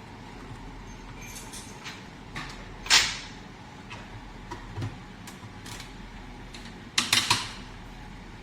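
Tools and small metal parts of a Bosch diesel injector clacking and clinking as it is taken apart: one sharp clack about three seconds in, a lighter knock a little later, and a quick run of clacks near the end, over a steady low hum.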